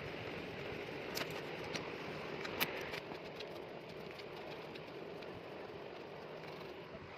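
A graphite pencil shading on drawing paper: a soft scratching over a steady background hiss, with a few sharp light ticks in the first three seconds.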